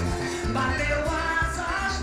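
Festa junina quadrilha music: a singing voice over instrumental backing with a steady, pulsing bass beat.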